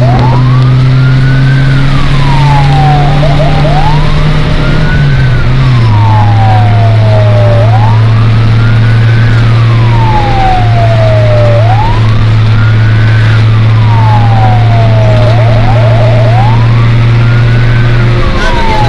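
Emergency-vehicle siren wailing, each cycle rising quickly and falling slowly, about every four seconds. Under it is a loud steady low hum of the vehicle's engine heard inside the cab, dropping slightly in pitch about six seconds in.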